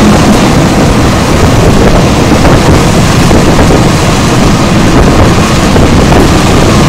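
Steady, loud rush of a passenger train running at speed: low rumble of the train with wind buffeting the microphone.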